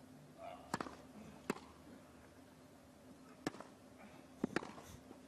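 Tennis ball on grass: a handful of single, sharp knocks, with two close together near the middle, over a quiet court.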